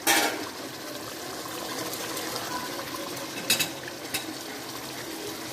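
Achar gosht curry simmering in an open aluminium pot on a gas burner: a soft, steady bubbling of the gravy. A brief clatter comes at the very start, and two short clicks come about three and a half and four seconds in.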